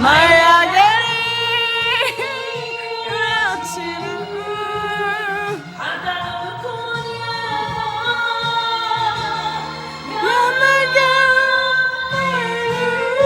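A woman singing a slow song over backing music, holding long notes with vibrato and sliding up into a note about ten seconds in and again at the end.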